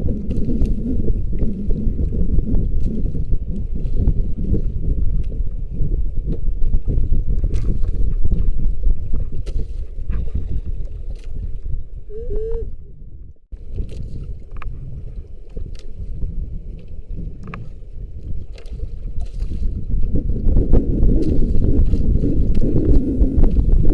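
Wind buffeting the microphone and water sloshing around a small fishing boat at sea: a steady, rough low rumble with faint scattered clicks, dropping out briefly about halfway through.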